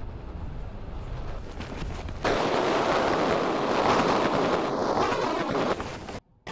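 Strong sandstorm wind buffeting the microphone: a low rumble at first, then about two seconds in a sudden jump to a louder, steady rush of wind and blowing sand. It cuts out briefly near the end.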